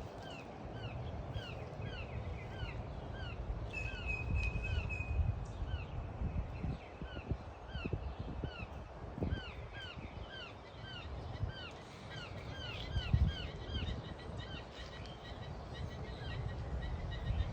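Woodpecker calling: a long run of short, falling notes, about two to three a second, with no pause.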